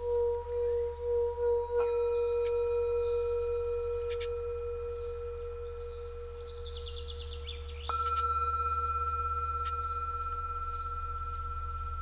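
Tibetan singing bowls ringing: a low tone wavers with a slow beat at first, then a higher bowl is struck about two seconds in and again, louder, near eight seconds, each strike ringing on and slowly fading. Birds chirp briefly around seven seconds in.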